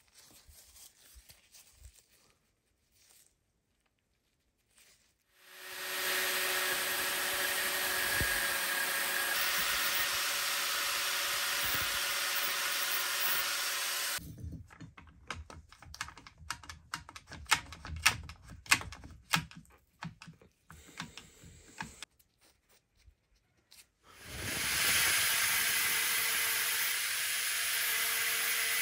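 Angle grinder running with a thin disc against an old iron horseshoe, a steady grinding whine that starts about five seconds in and stops about halfway through. A stretch of clicks and knocks from handling the workpiece follows, then the grinder runs again near the end.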